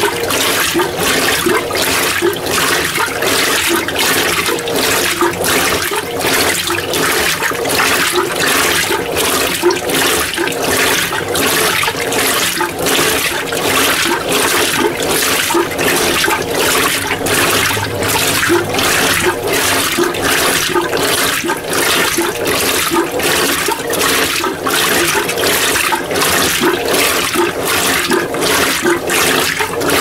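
Mueller Energy 8 kg top-load washing machine agitating a small load in a low water level on its heavy-soil (Encardida) agitation: the agitator's back-and-forth strokes churn the water in a regular sloshing swish, about three strokes every two seconds.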